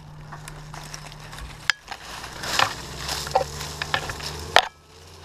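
Dry oak leaves and twigs rustling and crackling as a climber moves through the tree's canopy, with two sharp knocks, one near the middle and a louder one near the end. A steady low hum runs underneath.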